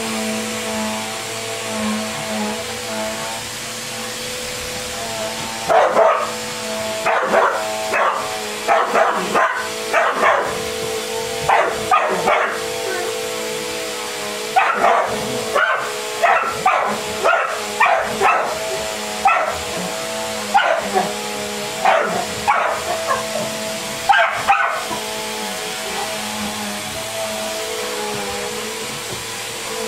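Dog barking repeatedly at a running upright vacuum cleaner: a long run of short, sharp barks from about six seconds in until near twenty-five seconds, over the vacuum motor's steady hum, which goes on alone at the start and end.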